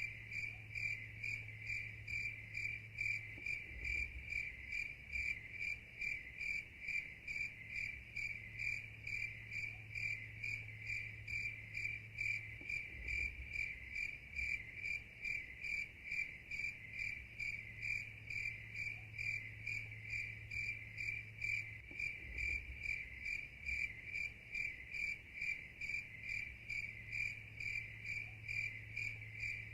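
Cricket chirping steadily, about three even, high-pitched chirps a second.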